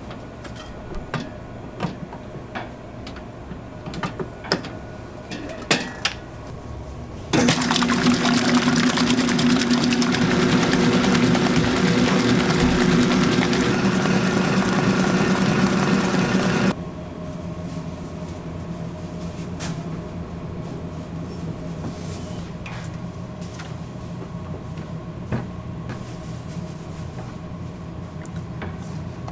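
Commercial planetary stand mixer with its steel bowl: several metal clinks and knocks as the bowl is handled, then the mixer runs with a loud, steady whir from about seven seconds in, cutting off suddenly after about nine seconds. A quieter steady hum continues after it stops.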